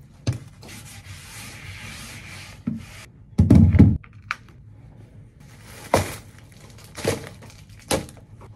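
Rubbing and rustling noise, a heavier thump about three and a half seconds in, then three sharp knocks about a second apart.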